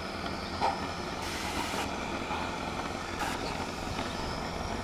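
A Wickham rail trolley's engine running steadily, with a short clank a little over half a second in.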